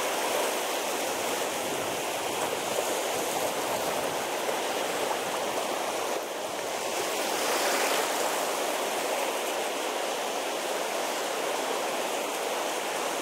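Shallow water lapping and washing over a pebble shore: a steady rushing sound that swells a little about eight seconds in.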